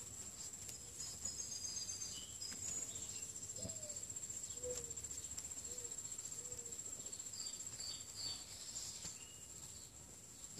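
Garden ambience: a steady high-pitched insect trill, with a few short bird chirps on top.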